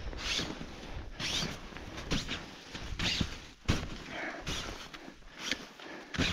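A small hand tool digging and scraping packed snow away from the base of a tent, crunching in short strokes about once a second, with a sharp click about halfway through.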